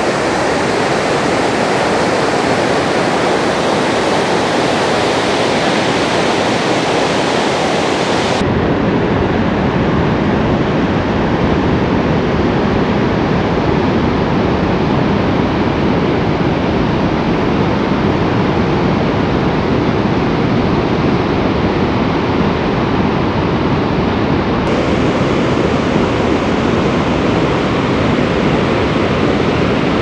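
Barachukki Falls, a large multi-tiered waterfall on the Kaveri River running high with water, rushing loudly in a steady, even wash of noise. About eight seconds in, the sound turns deeper and fuller.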